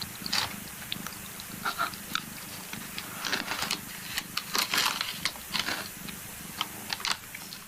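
Short animal sounds and scattered sharp clicks over a steady low hum.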